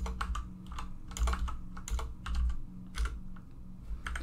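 Typing on a computer keyboard: irregular key clicks, a few per second, as code is entered.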